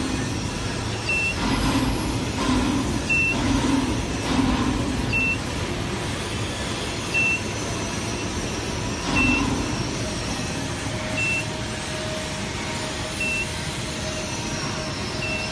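Steady machinery rumble, with a short high beep repeating about every two seconds and a few louder low surges in the first half.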